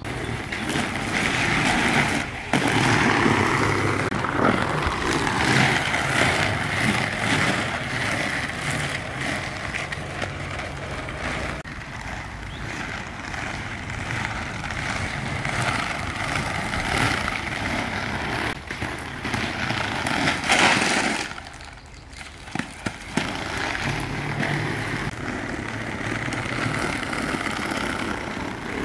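Inline skate wheels rolling over concrete paving stones: a continuous rattling rumble with rapid clicks as the wheels cross the joints between the stones. It drops off for about a second roughly three-quarters of the way through, then picks up again.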